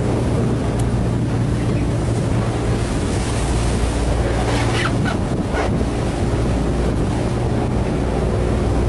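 Patrol boat's engine running steadily under wind buffeting the microphone and water rushing past the hull at speed, with a couple of brief hissing rushes of spray around the middle.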